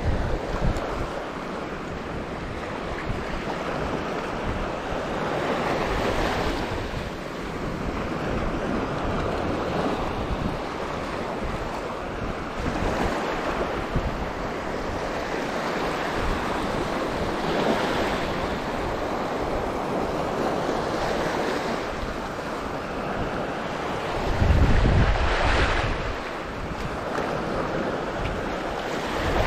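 Strong wind buffeting the microphone over the wash of sea waves, swelling and easing every few seconds, with a heavier gust near the end.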